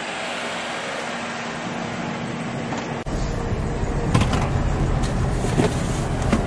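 Car on the move: a steady hiss of road and wind noise with a faint hum, which changes abruptly about three seconds in to a lower engine and road rumble with a few short knocks.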